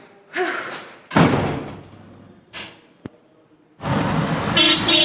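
A door slams shut about a second in. About a second before the end, the steady noise of an auto-rickshaw ride through street traffic cuts in abruptly.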